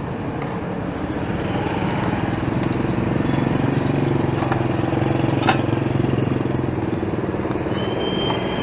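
A motorcycle engine running steadily close by over street traffic noise, swelling for a few seconds in the middle and then easing off. There is one sharp click about five and a half seconds in.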